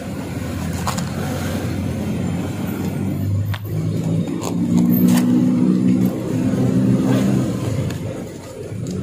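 A motor vehicle engine running and revving up, with a few sharp clicks of paper banknotes being handled.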